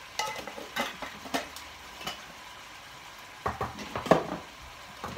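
Kitchen clatter: a few sharp knocks and clinks of a container and spoon, then a louder cluster of metal clanks about three and a half seconds in as the stainless steel pot is handled. Faint sizzling of minced pork frying in the pan runs underneath.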